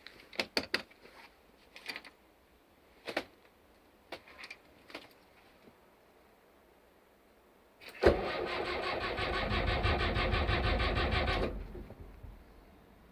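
A few sharp clicks, then about 8 seconds in a boat engine's starter cranks it for about three and a half seconds and stops without the engine catching: the engine has died, probably out of fuel.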